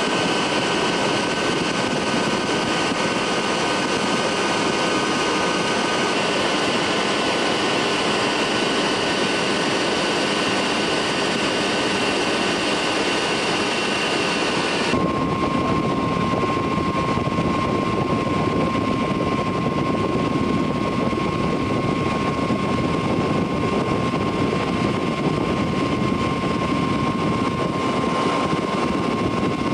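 Ultralight aircraft's engine and propeller running steadily in flight, heard from inside the cockpit. About halfway through, the sound abruptly changes: less hiss, with a steady whine appearing.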